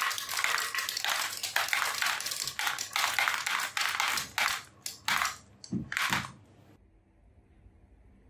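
Marbles clattering down a wooden zigzag ramp and dropping into a plastic toy dump truck's bed, a dense rattle that thins to a few last clicks about five to six seconds in and stops about seven seconds in.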